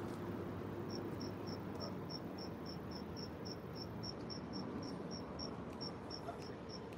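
A steady run of short, high-pitched chirps, about three or four a second, starting about a second in, over a low outdoor background rumble.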